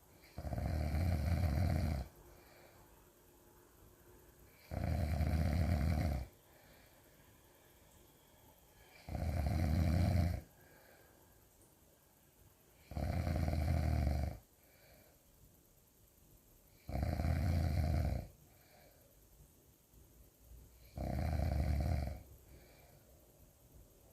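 A person snoring really loud: six long snores, one about every four seconds, each lasting about a second and a half.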